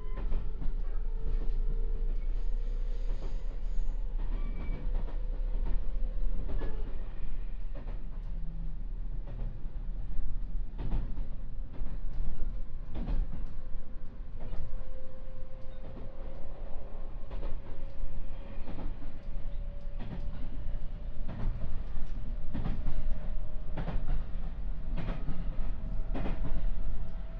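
JR West 221 series electric train running: a steady low rumble with a whine that slowly rises in pitch as the train gathers speed, and short clacks of the wheels over rail joints every second or two.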